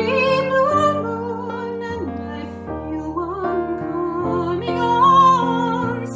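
A woman singing long, wavering held notes of a slow ballad, accompanied by chords on a digital piano; the voice swells louder about five seconds in.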